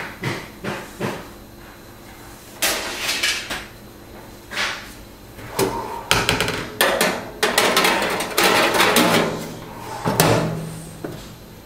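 Metal toaster-oven wire rack and baking pan being handled: a few sharp knocks at first, then bursts of clattering and rattling metal, densest in the second half, with a last single knock near the end.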